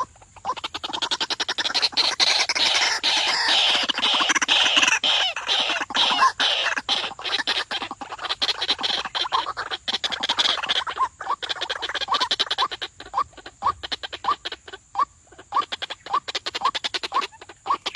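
White-breasted waterhen calling: about ten seconds of loud, harsh chattering calls, then a run of short rising notes, one or two a second. This is the decoy bird's call used to lure wild waterhens to the trap.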